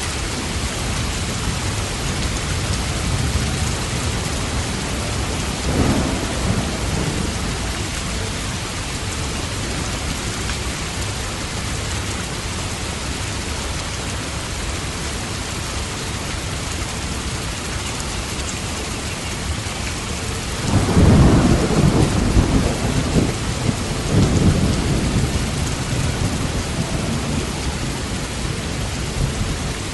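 Steady heavy rain, with a short roll of thunder about six seconds in and a louder, longer thunder rumble starting about twenty seconds in.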